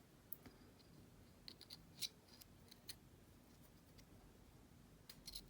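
Faint, scattered small clicks and light scratching of the heat sink parts being handled, against near silence.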